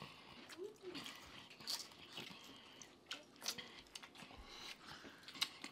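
Faint, close-up chewing and mouth sounds of people eating chicken wings, with scattered short wet clicks.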